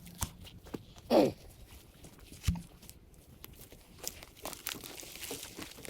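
Brush and branches being handled, with scattered crackling and snapping and a dull thud about two and a half seconds in. About a second in, a short animal cry falls steeply in pitch.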